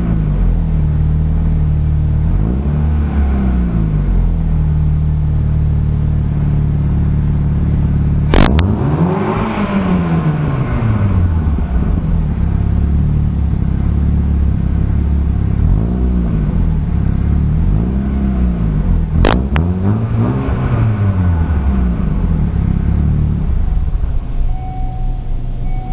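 Chevrolet Aveo four-cylinder engine through an aftermarket 'fart can' muffler with an exhaust leak, idling and being revved up and down several times. There are two sharp cracks, one about a third of the way in and another about three quarters of the way in.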